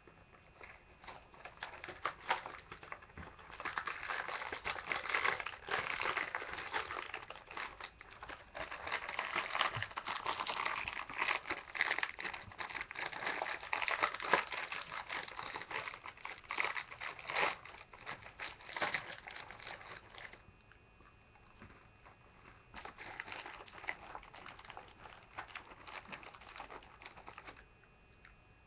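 Plastic inner bag of a box of animal crackers crinkling and rustling as it is opened and handled, loudest through the first two-thirds, with crunching as the crackers are bitten and chewed.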